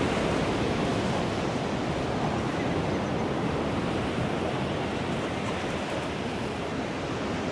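Pacific surf washing onto a sandy beach: a steady rush of waves.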